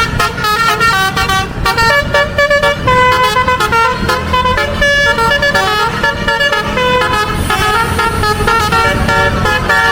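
Bus 'telolet' musical air horn playing a quick melody of short stepped notes over a low rumble from the bus.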